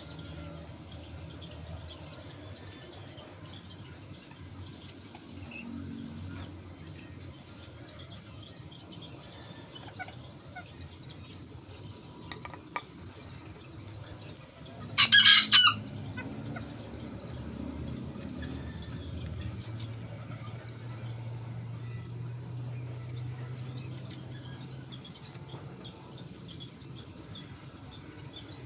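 A rooster crows once, a loud call about a second long about halfway through. Around it is a quiet background with a couple of faint clicks.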